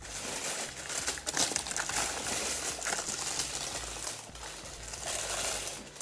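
Tissue paper rustling and crinkling as it is lifted and folded back out of a shoe box, a continuous run of crackles that eases off briefly about four seconds in.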